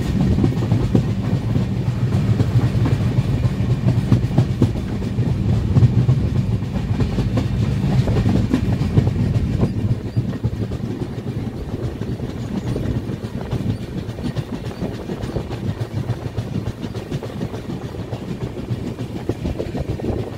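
Express passenger train running on the line, a steady rumble with the clatter of wheels on the rails. It turns a little quieter about halfway through.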